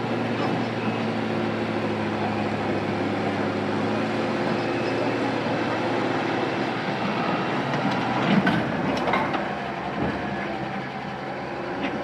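A heavy vehicle's engine running steadily, with a few knocks and clatters about eight to nine seconds in.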